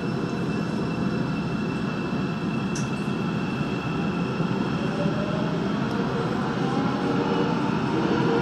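Busan Metro Line 3 train pulling out of a station and gathering speed into the tunnel, heard from inside the car: steady running and rail noise, with a whine that rises in pitch from about halfway as the train accelerates.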